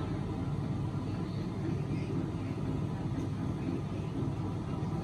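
Steady low rumble of distant city traffic, with no sudden sounds standing out.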